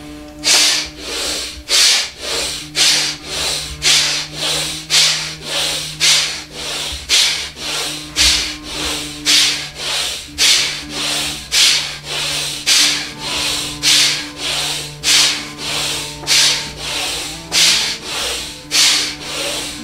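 A man doing Bhastrika bellows breathing, forceful in-and-out breaths through the nose. The rhythm is even, about two hissing strokes a second, with loud and softer strokes alternating.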